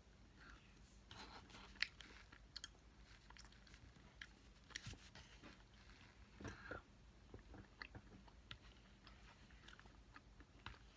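Faint chewing of a mouthful of chocolate cake with crunchy chocolate chips: scattered small crunches and clicks, a few slightly louder than the rest.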